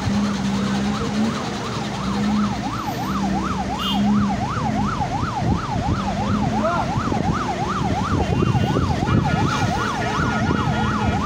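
Vehicle siren in a fast yelp, its pitch sweeping up and down about three times a second, over traffic noise. A low steady hum comes and goes through the first half.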